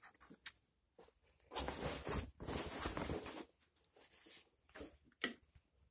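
Faint rustling and handling noises in a few short bursts, with a sharp click near the end, as a cloth laundry bag is handled.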